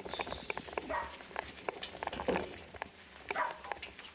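A dog barking three times, short barks about a second apart, over light clicking and rattling.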